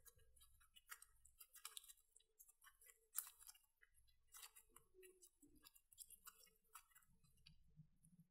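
Faint, irregular sticky clicks and crackles of glossy slime with foam beads being squeezed and kneaded by hand, with one sharper pop about three seconds in.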